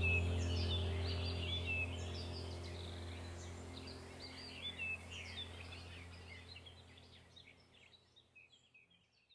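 A background track of many birds chirping over a steady low drone, fading gradually away toward the end.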